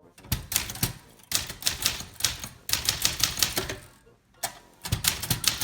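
Brother Charger 11 portable manual typewriter being typed on: fast runs of key strikes in about four bursts with short pauses between them.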